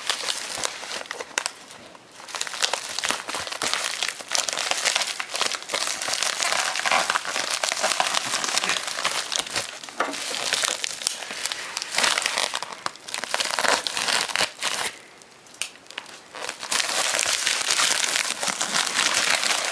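Shipping packaging being opened by hand: packing material crinkling and rustling in long crackly stretches, with a couple of short pauses.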